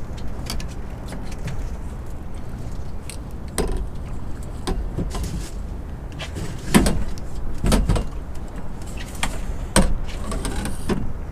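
Knocks and clatter of a landing net and a freshly caught sea bass being handled in a small boat, over a steady low rumble. The loudest knocks come about seven and ten seconds in.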